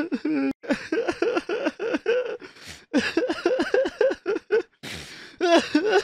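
A person crying: a run of short, pitched sobs, several a second, broken by sharp gasping breaths, then a long held wail that begins near the end.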